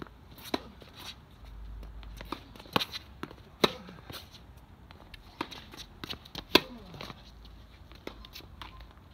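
Tennis balls being struck by rackets and bouncing on the court: sharp pocks at uneven spacing, the loudest three in the middle of the stretch, each with a brief ringing tail.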